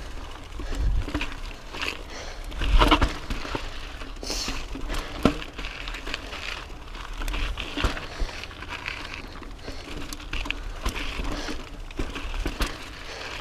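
Pivot Mach 429 Carbon mountain bike rolling over rocky dirt singletrack: tyres crunching on grit and rock, with irregular knocks and rattles of the bike over the rocks and a low rumble underneath. The biggest clatter comes about three seconds in.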